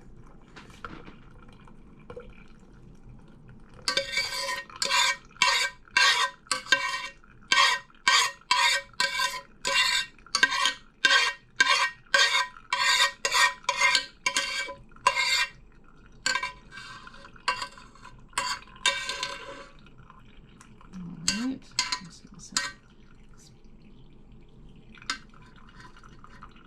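A spoon stirring and scraping in a strainer while boiled elderberries are strained, in quick, ringing strokes about two a second for roughly fifteen seconds, then a few lighter clinks.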